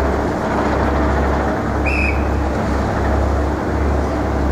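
Steady city street noise of traffic, with a low wind rumble that swells and drops on the microphone. A brief high squeak sounds about two seconds in.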